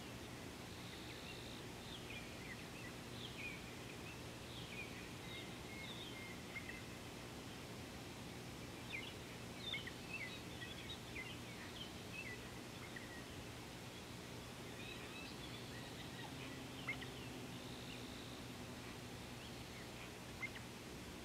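Birds calling: a scatter of short, high chirps and quick falling whistles, busiest around the middle, over a faint steady low hum.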